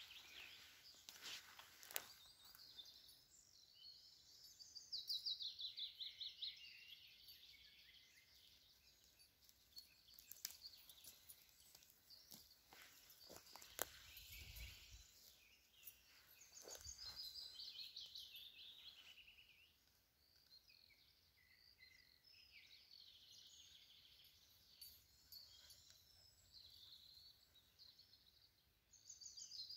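Faint songbird song: repeated trilled phrases, each falling in pitch over two or three seconds. Scattered light clicks and rustles of footsteps through grass.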